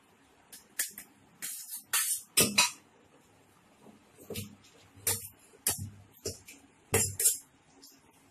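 Pieces of chicken being dropped one after another into a metal pot: an irregular string of about ten short knocks and clinks.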